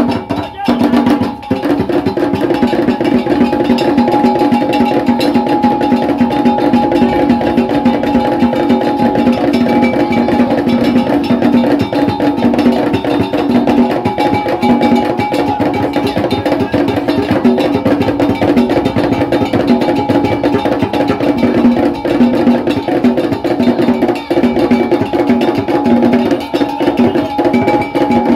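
Ga Kpele ritual drumming and percussion: several drums and hard knocking strokes playing a dense, unbroken interlocking rhythm.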